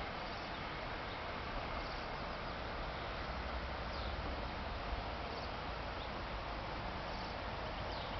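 Steady outdoor background noise with a low rumble and a few faint, short bird chirps every second or two.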